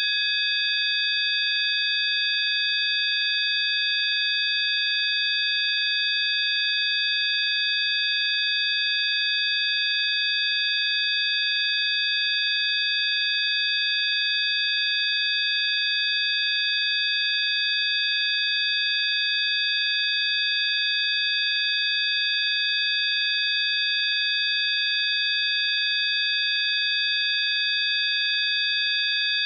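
Several steady, high-pitched electronic sine tones sound together as a 'healing frequency' drone, unchanging in pitch and level, over a faint hiss.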